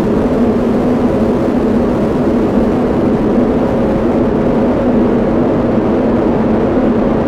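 Ambient drone music: a steady, dense low rumble with faint held tones above it, unchanging throughout and engine-like in character.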